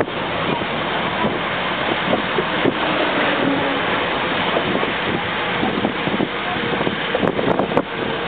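Steady rush of wind and road noise from a moving vehicle, with wind buffeting the microphone.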